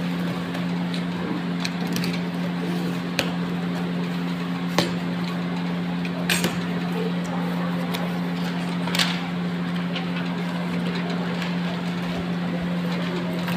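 Cardboard box being torn open by hand, with a few sharp cracks of cardboard and tape as the sealed flaps come apart. A steady machine hum runs underneath.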